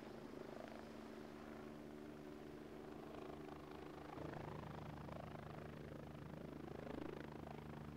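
Sécurité Civile EC145 rescue helicopter hovering and coming down to land: the steady whine of its turbines over the low, pulsing chop of the rotor, which grows louder about halfway through.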